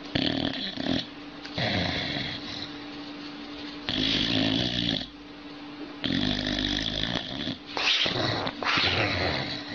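Boxer dog snoring in its sleep, a rasping snore with each breath every second or two, the last few with a rougher, grumbling edge.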